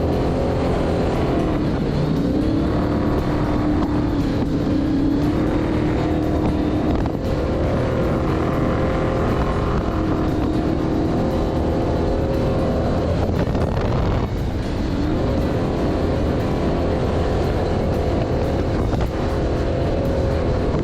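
Off-road race vehicle engine running hard at high revs. Its pitch rises about two seconds in, then dips and climbs again about two-thirds of the way through.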